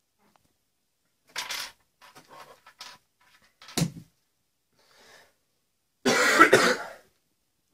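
A man coughs, once briefly about a second and a half in and more loudly for about a second near the end, with soft rustling and a sharp click in between as small plastic bags of figure parts are handled.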